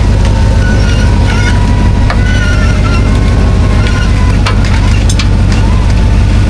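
Off-road vehicle engine running steadily with a deep rumble, under scattered sharp knocks and faint high squeaks and creaks.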